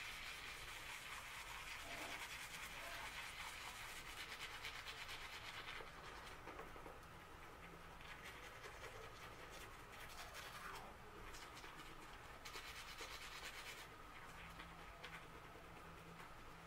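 Toothbrush scrubbing teeth with activated-charcoal whitening powder: a faint, scratchy brushing in stretches, easing off briefly a few times.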